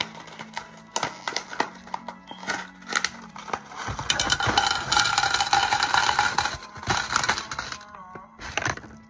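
Clear plastic packaging bag crinkling and rustling as it is handled and opened, loudest in the middle, with small sharp clicks and rattles of the items inside. Quiet background music runs underneath.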